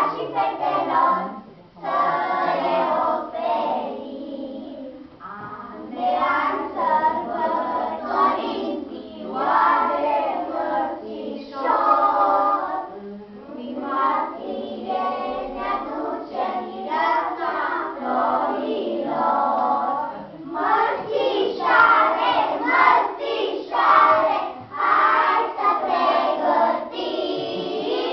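A group of young children singing a song together in chorus, phrase by phrase with brief pauses between lines.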